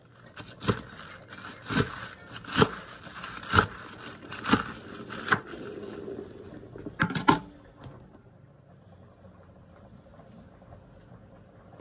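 Knife chopping fresh spinach on a wooden board: sharp knocks of the blade on the wood about once a second, with the crisp sound of leaves and stems being cut between them, ending in a quick double knock. The sound then dies down for the last few seconds.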